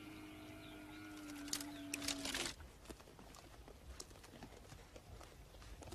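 A drawn-out low animal call held at one pitch for about two and a half seconds, cut off suddenly. After it come faint scattered clicks and rustles, like dry twigs and brush being moved.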